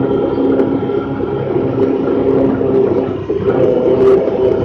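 Honda Pioneer 1000-5 side-by-side's engine running steadily under way on a dirt trail, with gravel and tyre rumble, heard from inside the open cab. The drone dips briefly a little over three seconds in, then carries on.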